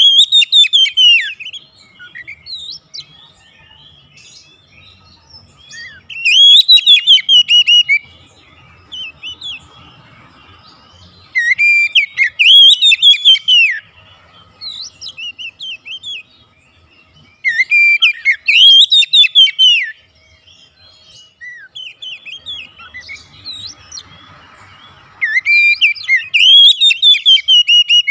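Oriental magpie-robin singing: loud, varied whistled song phrases two to three seconds long, repeated about every six seconds, with softer scattered chirps in the gaps.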